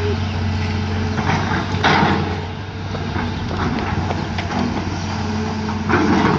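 Engine running steadily, with irregular knocks and clanks and two short bursts of noise, about two seconds in and near the end.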